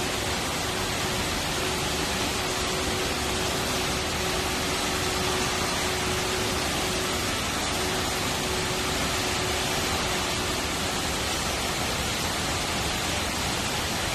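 Jewel Changi Airport's Rain Vortex, a tall indoor waterfall, giving a steady, even rush of water pouring down into its basin.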